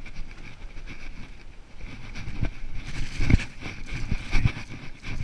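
Mountain bike ridden fast over a bumpy dirt trail: tyres rumbling on the dirt and the frame rattling, with several heavy thumps over the bumps from about halfway through.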